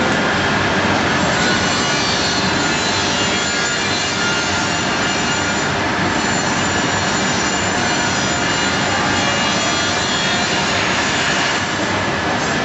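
Steady factory machinery noise: a loud, even hiss with a faint hum through it, unchanging throughout.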